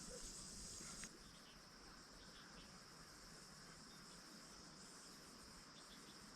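Faint, steady high-pitched chirring of insects, a little louder for the first second, then holding even.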